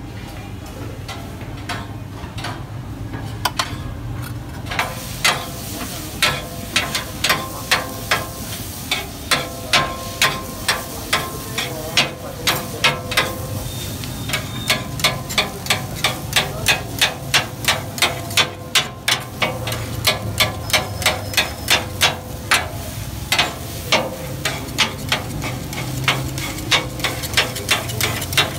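Rapid metal chopping of cooked food, about two to three sharp ringing strikes a second, over a steady sizzle. The strikes begin a few seconds in, sparse at first, then settle into a fast, fairly even rhythm.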